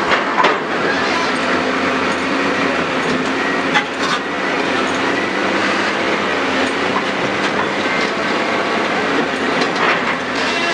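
Heavy diesel earth-moving machinery running steadily, with a few metallic knocks, two close together about four seconds in.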